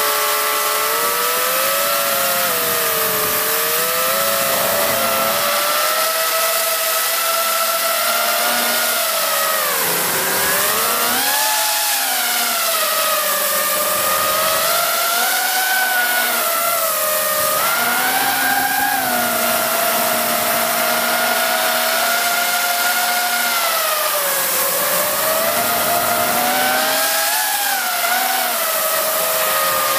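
FPV quadcopter's electric motors and propellers whining steadily, the pitch sagging and rising with the throttle: dipping about ten seconds in and again near the end, climbing again just after.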